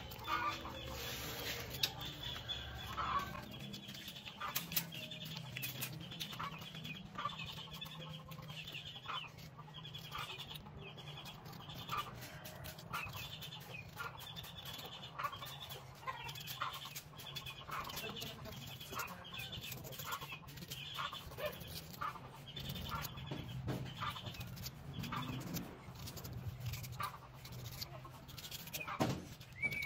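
Chickens calling in the yard: a short high call repeating more than once a second, with scattered sharp clicks and a steady low hum underneath.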